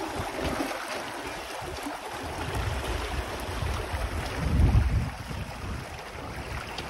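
Wind buffeting the microphone over the wash of the sea on a sailing yacht under way, with the low gusts loudest about four and a half seconds in.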